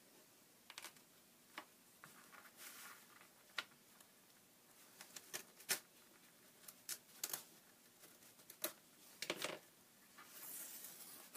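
Faint, irregular clicks and short scrapes of a blade cutting through paper on a book, with a slightly longer scrape about nine seconds in.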